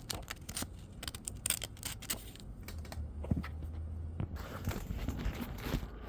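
Irregular light clicks and rustling from handling the disassembled window switch's small plastic parts and a piece of sandpaper.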